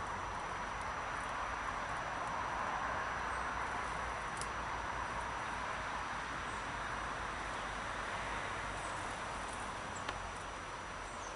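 Steady outdoor background hiss with a few faint, short, high-pitched chirps from small garden birds, and one light tap about ten seconds in.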